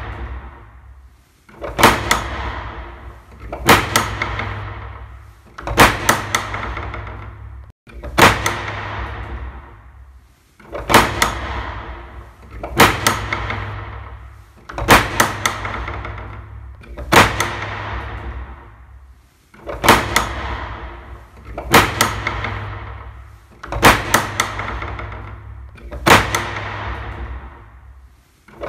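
Film soundtrack of heavy, reverberant hits, two or three quick strikes every two seconds or so, each dying away slowly, over a low steady rumble.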